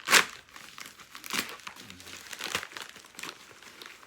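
Packaging crinkling and rustling as it is handled, in several separate rustles, the loudest right at the start.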